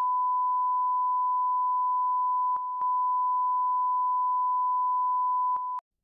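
Broadcast line-up test tone under colour bars: a single steady pure tone, briefly interrupted by two clicks about two and a half seconds in. It cuts off abruptly near the end.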